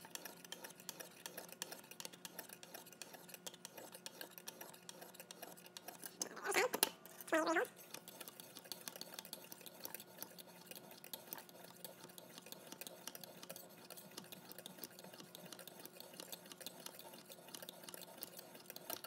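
Lansky extra-fine hone stone stroked along a clamped steel knife edge: a faint, steady run of short scraping strokes. A brief murmur of voice comes about six to seven seconds in.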